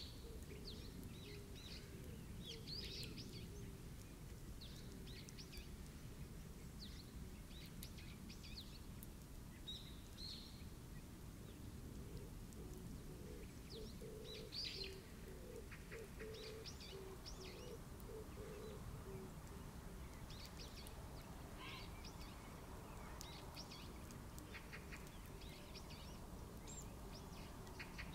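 Birds chirping and calling in short, scattered notes over a steady low background rumble of outdoor ambience, with a brief run of lower pulsed calls in the middle.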